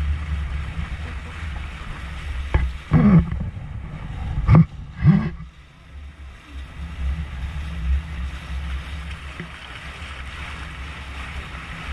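Wind buffeting the microphone and water rushing along a towed inflatable banana boat, a steady low rumble with spray hiss. A few short loud bursts break in between about three and five seconds in.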